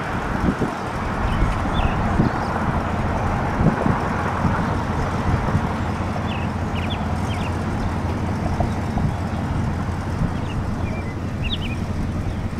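Road traffic: a steady rumble of passing vehicles, a little louder near the start, with a few short high bird chirps now and then.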